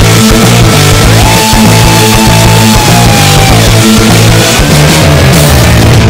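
Loud rock music with guitar and drums playing continuously, a guitar line sliding up in pitch about a second in.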